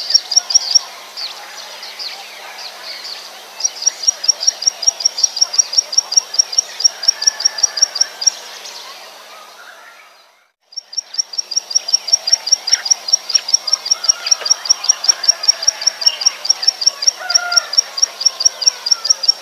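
Plain prinia singing: a rapid, even series of high notes, about five a second, in long runs. The song breaks off for a few seconds near the start, fades out to a brief silence about halfway through, then starts again and runs on steadily.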